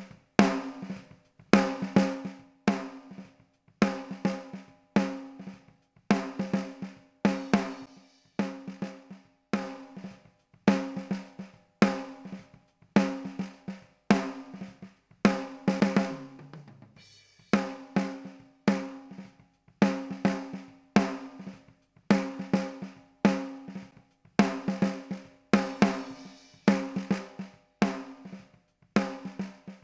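A recorded drum kit plays a steady groove of kick and snare hits, the snare ringing with a clear tone, run through a Universal Audio 1176-type compressor. About sixteen seconds in there is a fill down the toms, falling in pitch.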